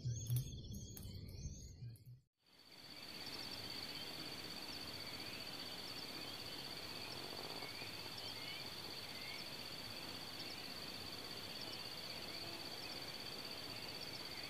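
Outdoor ambience of insects and birds: a steady high insect drone with scattered short bird chirps over a constant hiss. It starts after a sudden cut about two seconds in.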